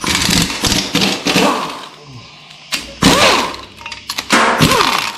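Tools and metal engine parts being handled during an engine teardown: a run of sharp clanks and knocks, with two short squeaks about three and four and a half seconds in.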